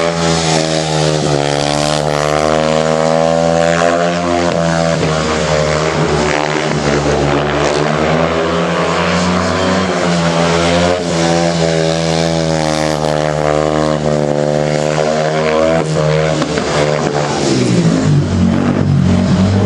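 250cc speedway solo bike engine racing round the dirt oval, its note rising and falling again and again as it is opened up on the straights and eased into the bends, over a steady low drone.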